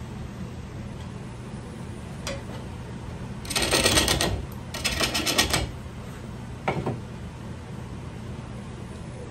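Turning gouge cutting into a spinning, out-of-round red cedar blank on a wood lathe: two bursts of rapid clattering about 3.5 and 5 seconds in, under a second each, as the tool meets the uneven blank each turn, then a short knock near 7 seconds. A steady low hum runs underneath.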